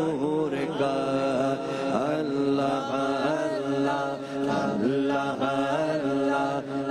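A man's voice singing an unaccompanied Urdu naat in long, sliding, ornamented phrases, over a steady low hum.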